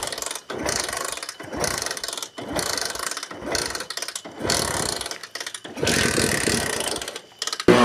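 Hand tool working on a motorcycle in a run of rasping strokes, about one a second, with short pauses between them.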